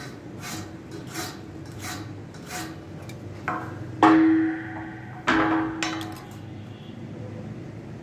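A steel scriber scratching a few short strokes along a try square onto galvanised steel box bar, then the hollow box bar clanking down twice as it is turned over, each clank ringing on briefly as it fades.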